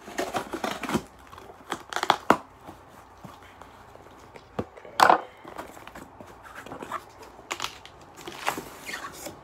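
A cardboard shipping box being opened by hand: packing tape slit and torn, flaps pulled apart and an inner box drawn out, making a run of irregular scraping, tearing and rustling noises. The sharpest and loudest crackle comes about five seconds in.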